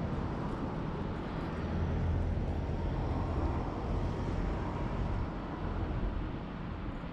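Steady outdoor street ambience dominated by a low rumble, a little louder a few seconds in and easing off near the end.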